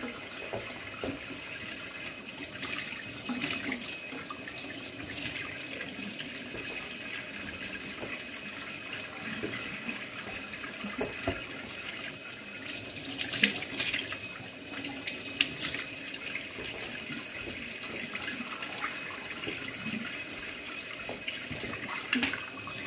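Kitchen faucet running into a stainless steel sink while raw pork chops are rinsed under the stream by hand, with a few louder splashes about halfway through.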